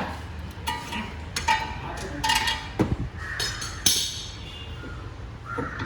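Metal tools and parts clinking against each other, several sharp clinks that ring briefly, over a steady low hum.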